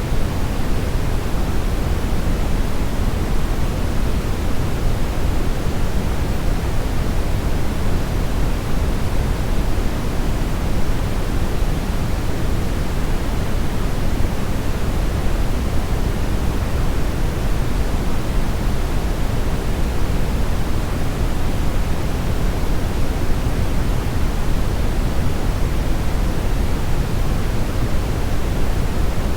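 Steady synthetic brownish noise: an even, unchanging hiss weighted toward the low end, with no events or changes.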